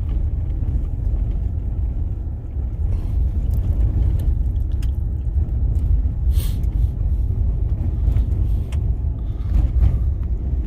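Vehicle driving on a gravel road: a steady low rumble of engine and tyres, with a few faint clicks scattered through it.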